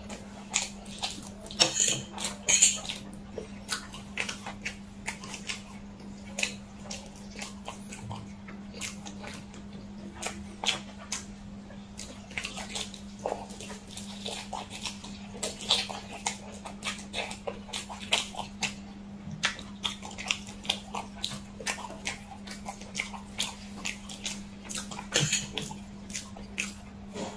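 Close-miked mouth sounds of a person eating spicy fire noodles: repeated slurps and wet chewing smacks, over a steady low hum.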